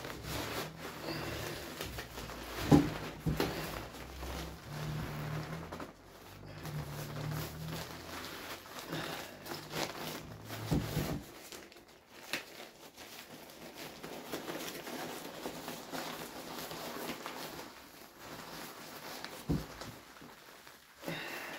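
Tent fabric rustling and crinkling as it is squashed down into its stuff sack, with handling knocks and a sharp knock about three seconds in.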